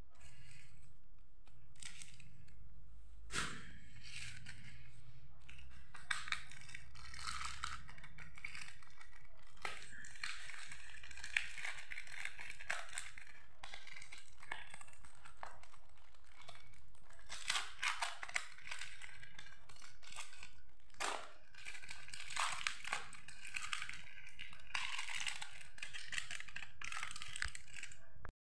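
Aluminium foil crinkling and crackling as it is crumpled and peeled open by hand, with irregular sharp crackles throughout.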